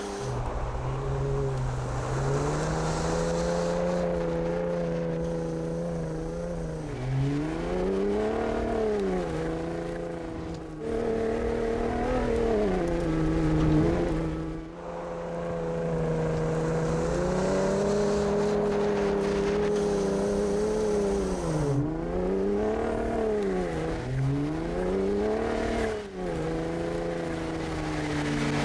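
Ford F-150 Raptor pickup engine running at a steady pitch, which rises and falls several times as the throttle is worked.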